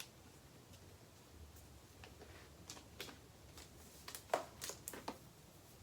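Faint handling noises from unboxing packaging: a few light clicks and rustles. The sharpest click comes about four seconds in, with a few more just after it.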